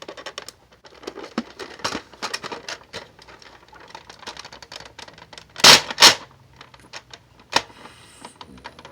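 Bolt-action Nerf blaster's bolt being worked with no magazine in, a run of small crunchy clicks, with two loud bursts close together a little past the middle and a sharp click after them. The crunchy sound is one the owner takes as a sign that something is wrong with the blaster.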